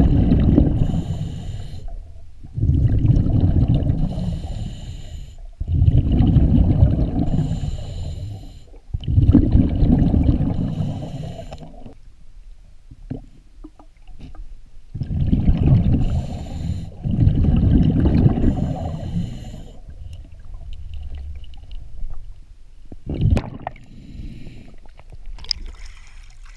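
Scuba diver breathing through a regulator underwater: a loud bubbling rush of exhaled air every three seconds or so, between hissing inhales, with a pause of a few seconds midway. A sharp knock near the end.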